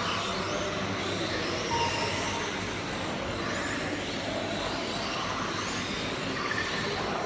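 Brushless electric motor of a 1/10-scale MD Racing MDF14 RC F1 car whining, rising in pitch several times as it accelerates out of corners, over a steady background hiss.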